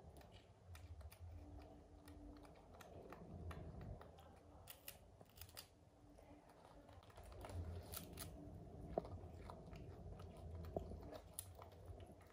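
Faint crunching and chewing of crisp rolled wafer sticks as a baby monkey and a toddler eat them, with scattered small clicks and crackles.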